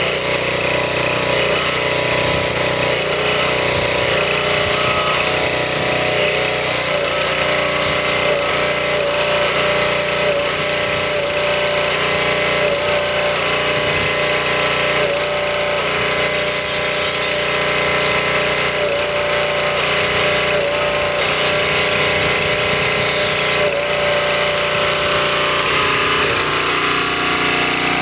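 Pressure washer running steadily under load while its wand sprays foam, a constant machine drone with the spray hiss over it.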